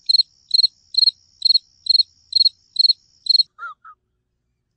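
Cricket chirping sound effect: a steady run of eight evenly spaced high chirps, about two a second, then two short lower chirps, over otherwise total silence. This is the stock 'crickets' effect used to mark an awkward pause.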